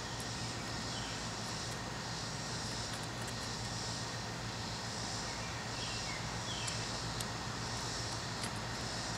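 A hand trowel digging into dry garden soil, heard only as a few faint scrapes and ticks over a steady low background hum.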